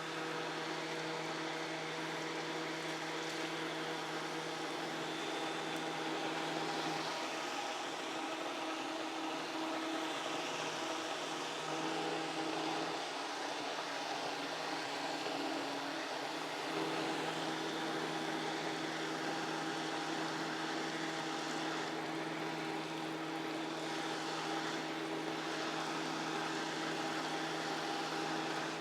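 Countertop blender motor running steadily, blending thick pancake batter until it is smooth. The motor's hum shifts and wavers for several seconds in the middle, then settles back.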